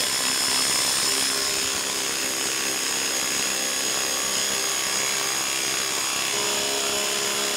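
Ryobi HP brushless impact driver hammering steadily as it drives a 4-inch lag screw into a wooden log.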